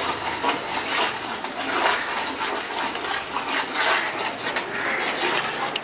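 Metal utensils scraping and clattering against a large cooking pot, over a steady noisy hiss.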